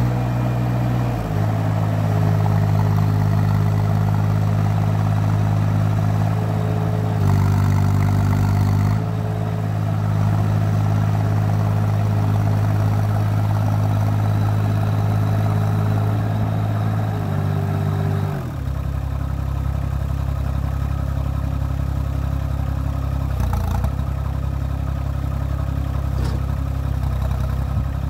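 LTMG LTE20 mini excavator's Kubota diesel engine running while the boom and thumb lift and place a log. Its note steps up and down several times with the hydraulic load, then settles to a lower, slightly quieter note about two-thirds of the way through.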